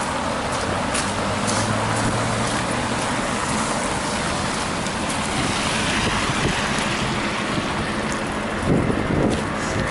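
Steady wind and road noise heard from a moving electric unicycle, with traffic running nearby. A low hum holds for a couple of seconds about a second in, and a few low thumps come near the end.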